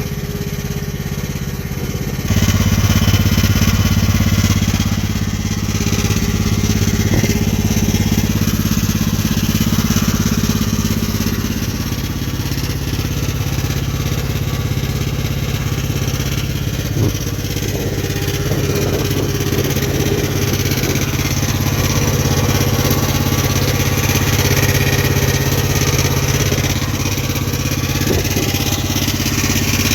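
Homemade mini skid steer's engine running, stepping up in speed about two seconds in and changing note again around twelve seconds in, with a single brief clunk near seventeen seconds.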